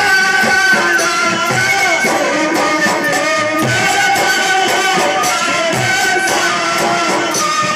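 Live Shekhawati Holi dhamal music: chang frame drums beat deep strokes about once a second under a wavering, held melody line, played by a bansuri flute.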